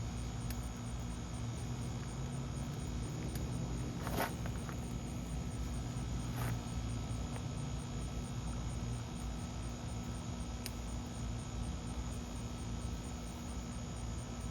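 Outdoor evening ambience: an insect chirping in a high, even pulse of about two to three beats a second over a low steady hum. Brief rustles about four and six and a half seconds in, as cord is handled while being wrapped and tied.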